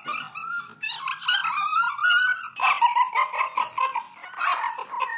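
A dog yipping and whining in a run of short, high, wavering cries that grow louder about halfway through.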